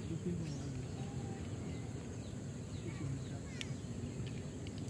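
Indistinct, murmured voices talking at a distance, with a few short high chirps from birds over outdoor background noise.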